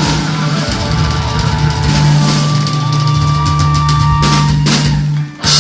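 Live rock band holding a chord over drums, with a run of loud drum and cymbal crashes near the end: the closing flourish of the song.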